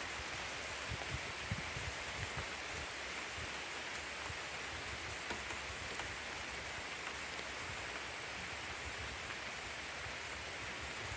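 Steady rain falling in the woods: a constant, even hiss, with a few soft low thumps a second or two in.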